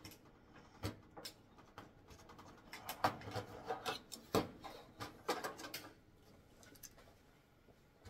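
Handling noise as wires and white plastic bulb-socket fittings are worked on a tanning bed's sheet-metal lamp panel: scattered sharp clicks and knocks with rubbing, busiest through the middle and loudest about four seconds in.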